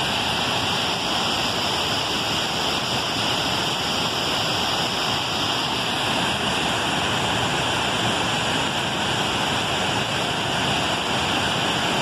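Muddy river water pouring over a small concrete weir and down a rocky channel: a steady, loud rush of falling and churning water.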